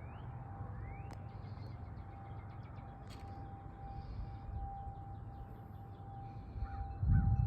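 Outdoor civil-defense tornado siren sounding for a tornado-drill test: one steady tone that swells and fades, over a low rumble. A brief low thud near the end.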